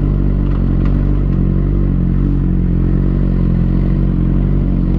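Sport bike's engine running steadily while the motorcycle rolls slowly up to a junction.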